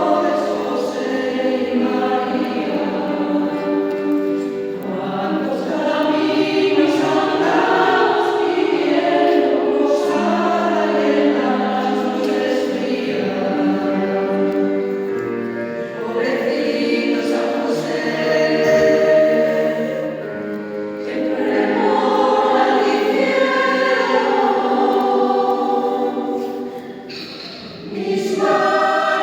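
Choir singing with many voices in harmony, the phrases held and sustained, briefly dropping in level near the end before the singing resumes.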